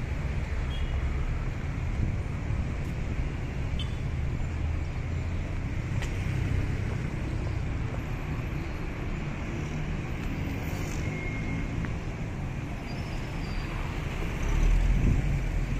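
Steady city street traffic: cars running along a busy boulevard, with a louder low rumble of a vehicle passing close near the end.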